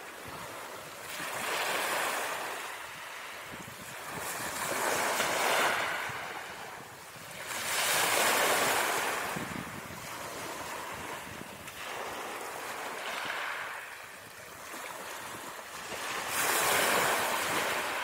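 Small sea waves breaking and washing onto a shore. The wash swells and ebbs about every three to four seconds, about five times.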